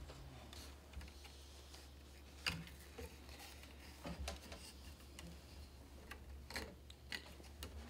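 Soft, irregular clicks and taps of hands working cotton warp thread around a wooden loom rod while pulling it tight, a few louder ticks among them.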